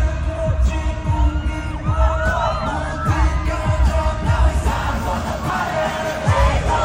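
Live K-pop concert music played loudly over the PA, with a heavy bass beat about every half second and singing over it.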